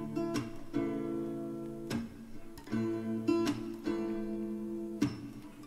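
Background music: an acoustic guitar strumming chords in a short instrumental gap between sung lines.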